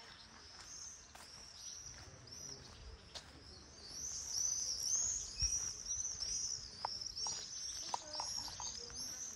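Small birds chirping: a steady string of short, high chirps, about three a second, growing louder and denser about four seconds in.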